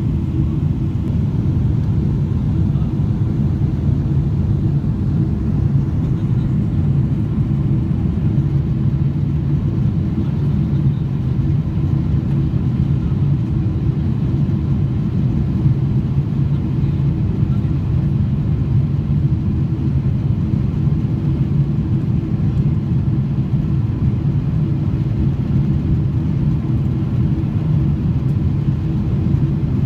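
Steady low rumble of airliner cabin noise inside a Boeing 777-300ER on approach with flaps extended: its GE90 engines and the airflow over the fuselage and wing, with a faint steady hum under it.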